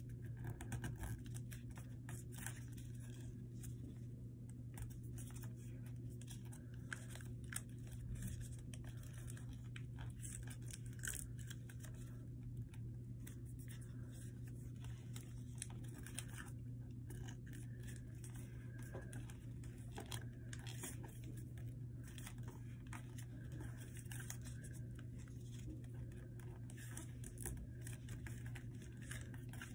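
Sheet of paper rustling and crinkling in the hands as it is folded and creased, in many small crisp crackles and scrapes, over a steady low hum.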